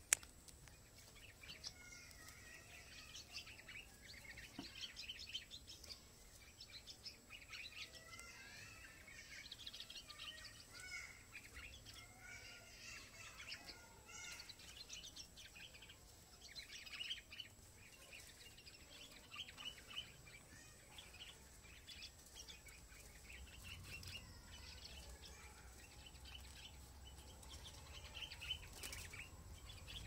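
Faint, continual chirping and twittering of small birds, many short calls overlapping, with a single sharp click right at the start.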